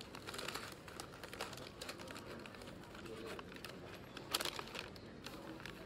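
Paper takeaway bag crinkling and rustling as it is handled, with one louder crinkle a little over four seconds in.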